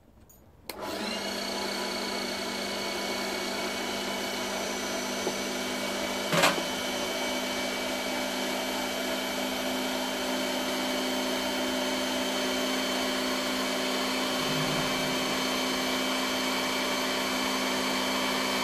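Electric meat grinder switching on about a second in and running steadily with a motor hum, stuffing seasoned pork mince through a sausage-filling tube. A single sharp knock about six seconds in.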